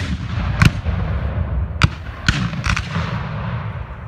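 Black-powder field cannon fire: a rolling, echoing boom with about five more sharp reports in the first three seconds, fading out toward the end.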